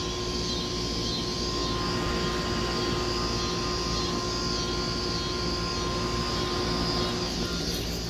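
Outdoor central air-conditioner condenser units running: a steady drone of compressor and fan, with a steady whine and a wavering high hiss over it. The whine drops out about seven seconds in.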